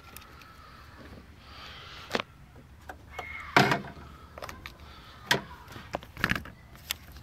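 A few sharp clicks and knocks as jump-starter battery clamps and their cables are handled and clipped onto the battery terminals. The loudest knock comes about three and a half seconds in.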